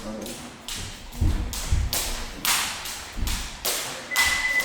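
Boxing gloves landing punches in sparring: a quick run of thuds and slaps, about two a second. Near the end comes a short, steady high electronic beep, the round timer signalling the end of the round.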